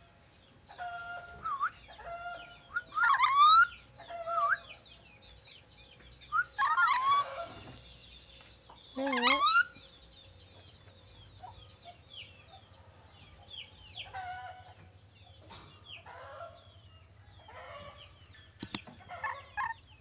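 Ornate lorikeet (nuri dora) whistling and calling in short rising phrases, the loudest about 3, 7 and 9 seconds in, then fainter calls through the second half.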